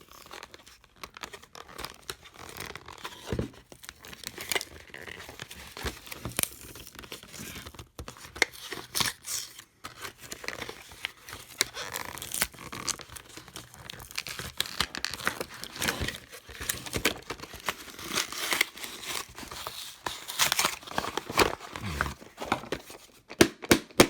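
Packaging of an impact driver bit set being handled and opened: irregular crinkling and tearing with scattered sharp clicks and knocks.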